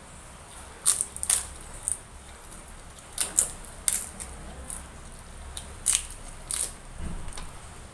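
Crisp fried papad crunching as it is bitten and chewed: a series of sharp, crackly crunches at uneven intervals.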